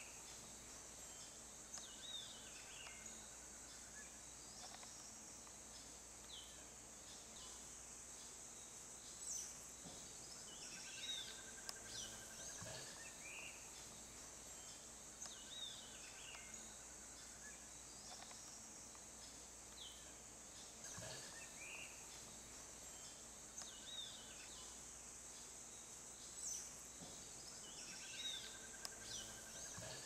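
Faint outdoor ambience: a steady high insect drone, with short bird chirps every few seconds and a few brief trills.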